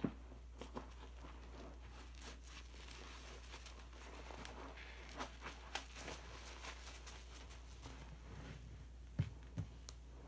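Sponge loaded with detergent foam, squeezed and kneaded by hand in a bowl of suds: faint wet squishing and a steady crackle of foam bubbles, with a few sharper clicks, the loudest at the very start and about nine seconds in. A low steady hum runs underneath.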